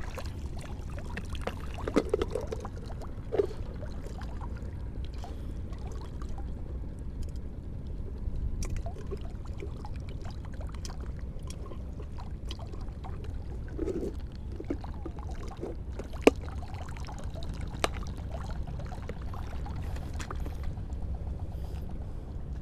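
Shallow seawater sloshing and trickling around a wading angler, over a steady low rumble, with a few sharp clicks, the loudest about three-quarters of the way through.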